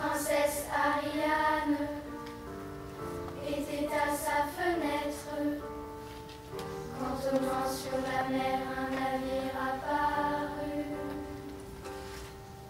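Children's choir singing phrases of an operetta number over held chords from the accompaniment, the voices entering in three phrases with short gaps between them.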